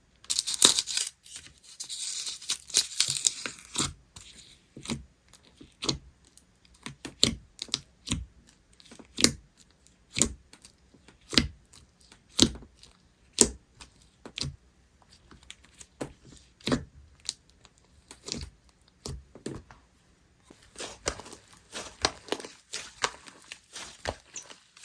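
Slime being handled by hand: a dense crackling and crinkling for the first few seconds, then a run of sharp separate pops and clicks about once a second as it is pressed and pulled, turning back to dense crackling near the end.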